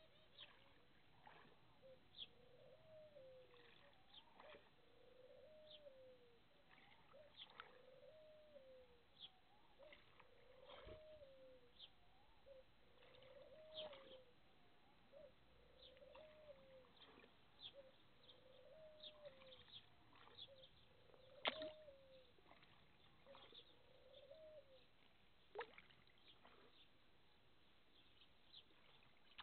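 Faint small pops and smacks of koi and shubunkin mouthing bread at the water surface, one sharper click a little past two-thirds of the way through. Under it, a faint low call repeats about once a second.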